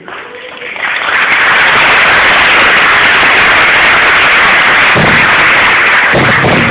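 Audience applauding loudly, a dense steady clapping that swells up about a second in and holds.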